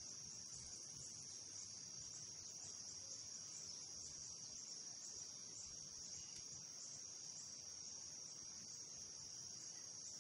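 Faint, steady high-pitched chorus of insects chirring.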